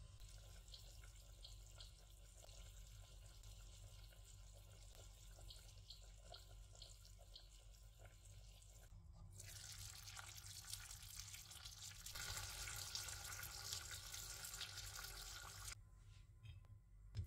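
Kitchen tap running into a sink: the water comes on about nine seconds in, runs harder a few seconds later, then is shut off. Before it, only faint small ticks.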